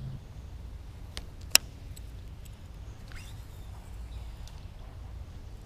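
Camera handling noise: a low rumble of the moving camera and fabric, with two sharp clicks about a second in, the second one loud.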